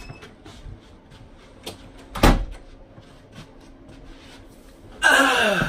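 Light knocks and one loud thump, a little over two seconds in, of someone moving about a small room. Near the end comes a loud sound that falls steeply in pitch.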